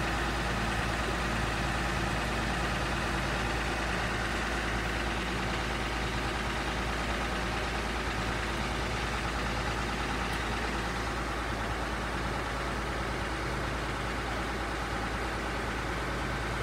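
Komatsu PC120 excavator's diesel engine idling steadily.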